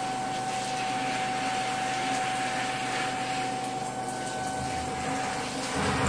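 Handheld shower head spraying water: a steady hiss of running spray, with one steady tone running through it.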